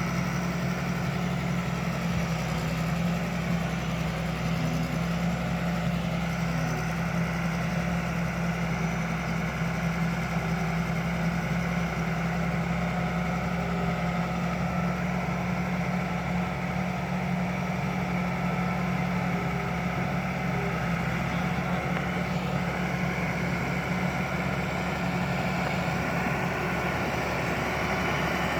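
Bulldozer's diesel engine running at a steady pitch, a constant deep drone with no change in speed.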